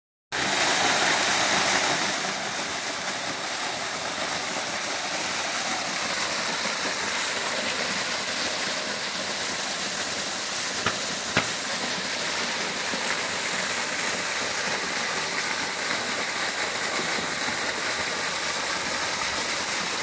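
Waterfall pouring down a rock face and splashing into a shallow pool: a steady rush of falling water. Two short clicks come about halfway through.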